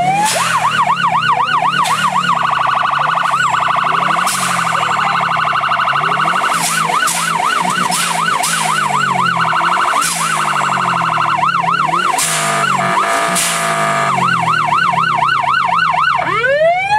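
Electronic siren cycling through its tones: a falling wail at the start, then a fast yelp rising and falling about four times a second, alternating with steady high tones, and a rising wail near the end.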